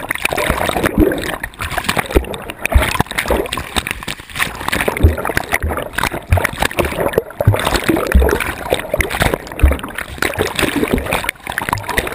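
Sea water churning and bubbling around a camera held at the surface as small waves wash over it, with irregular low thumps from the water and handling against the housing.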